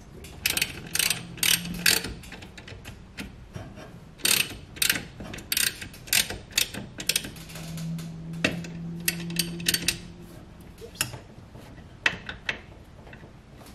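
Hand socket ratchet clicking in several quick bursts with short pauses between, as nuts holding a brake master cylinder to its booster studs are run down and tightened.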